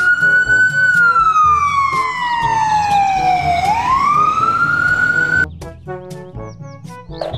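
Ambulance siren wailing: a slow rise, a long fall, then a rise again before it cuts off suddenly about five and a half seconds in. Background music with a steady beat plays underneath and carries on alone after it.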